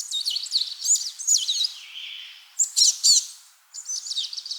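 A songbird singing: short phrases of quick, high notes that swoop up and down, repeated with brief pauses between them.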